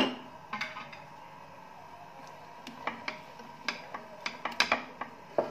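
Chopped onions sautéing in oil in a frying pan as they are stirred: scattered light clicks and ticks, more of them in the second half.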